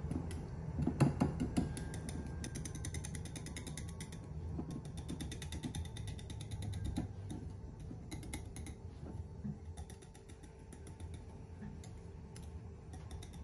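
Small wire whisk beating eggs into a milk-and-oat batter in a ceramic bowl: a fast, continuous rattle of the wires clicking against the bowl. A couple of louder knocks come about a second in, and the whisking grows a little softer near the end.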